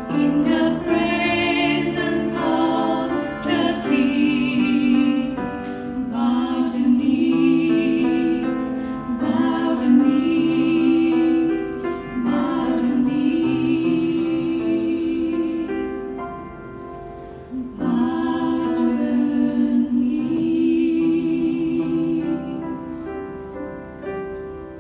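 Three women singing a worship song into microphones with instrumental accompaniment, in long phrases of held notes with vibrato. The singing fades out near the end.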